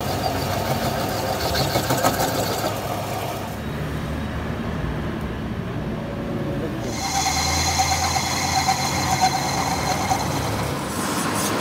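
Metal lathe running, turning the end journal of a generator engine crankshaft with a cutting tool against the steel. It gives a steady machine hum, duller for a few seconds in the middle, with a thin steady tone from the cut in the later part.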